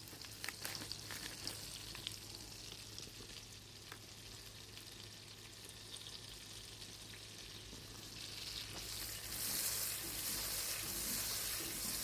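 Butter melting and sizzling in a pot over high heat, with scattered small crackles; the sizzle gets louder and brighter about nine seconds in.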